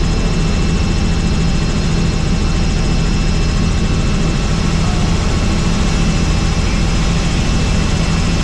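Helicopter turbine and rotor running steadily in flight: a loud, even drone with a rapid, regular beat from the rotor blades.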